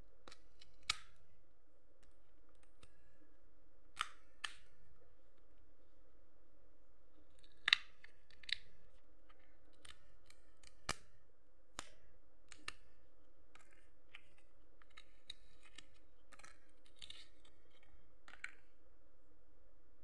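Kitchen knife cutting into the hard shells of raw chestnuts: scattered sharp clicks and short crunches a second or more apart, the loudest about eight seconds in, over a faint steady hum.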